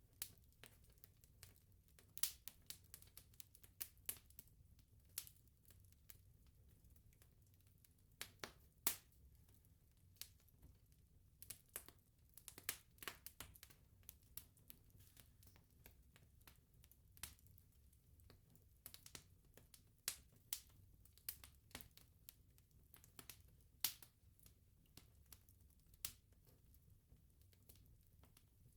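Wood bonfire crackling: irregular sharp pops and snaps, a few much louder than the rest, over a faint low rumble.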